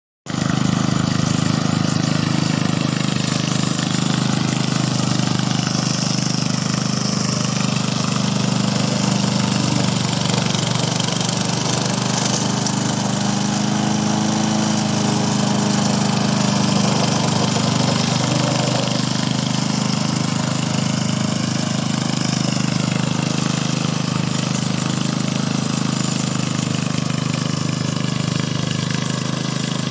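HT550 remote-controlled lawn mower's engine running steadily, its pitch shifting slightly now and then.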